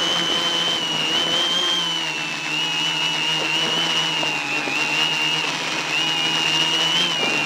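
Quadcopter's electric motors and propellers whining steadily, heard up close from the camera mounted on the craft. The pitch wavers slightly up and down as the motors change speed.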